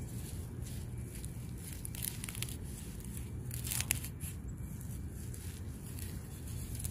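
Leaves and stems rustling and tearing as gloved hands part a clump of clover and weeds and a knife cuts cat's ear (false dandelion) plants at the base, with a couple of brief crackling tears near the middle. A steady low hum underneath.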